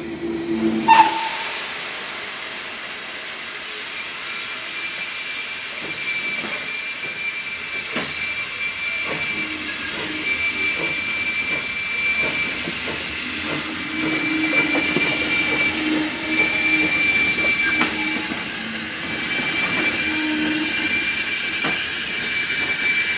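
Small steam locomotive hissing steam, a steady hiss with a high tone that breaks off and comes back, and scattered clanks and knocks. A sharp knock about a second in is the loudest event.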